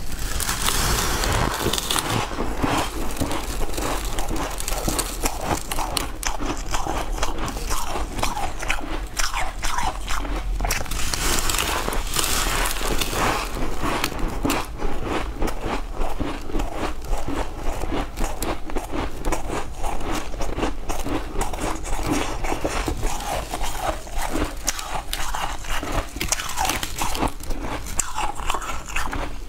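Biting and chewing a brick of frost ice frozen overnight: a dense, unbroken run of crisp crunches as the ice is bitten off and ground between the teeth.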